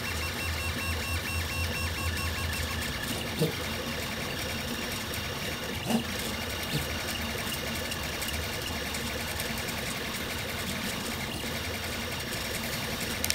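Velleman K8200 3D printer running a print: its stepper motors whir and whine in shifting tones as the print head moves over the part, with a pulsing hum and a couple of brief clicks.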